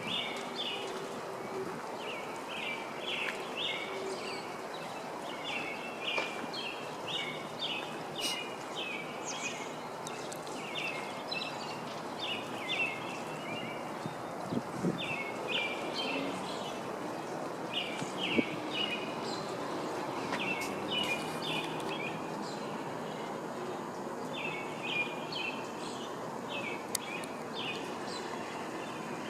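Small birds chirping in short repeated bursts of quick notes, every second or two, over a steady wash of outdoor background noise.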